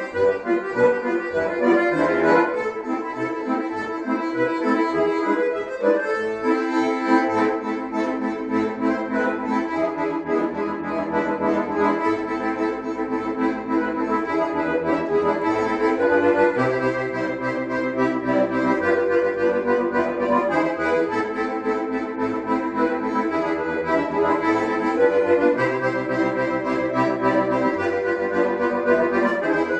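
Two bayans, Russian chromatic button accordions, playing a folk tune as a duet: a melody over held chords and bass notes that change every second or two.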